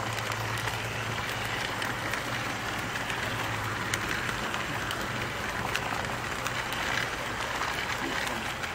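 Large-scale model train running on the layout track: a steady hum with faint scattered clicks.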